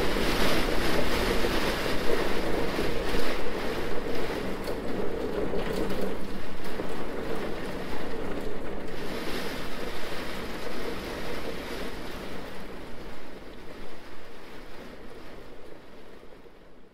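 Rainstorm sound recorded on an iPhone 6s: rain and wind making a steady, loud hiss. The hiss fades out gradually over the last few seconds.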